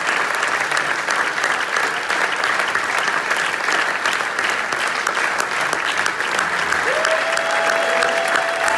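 Theatre audience applauding loudly and steadily at a curtain call, a dense sound of many hands clapping. From about seven seconds in, a long held tone rises over the clapping.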